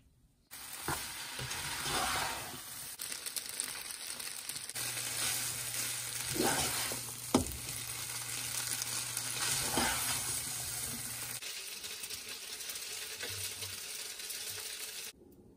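Chow mein noodles sizzling in a hot wok as they are stir-fried and tossed with a spatula, with a few sharp knocks of the spatula against the pan. The sizzle cuts off suddenly near the end.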